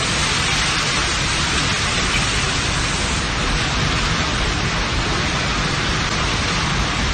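Heavy rain pouring in a steady, dense hiss, with no change in level.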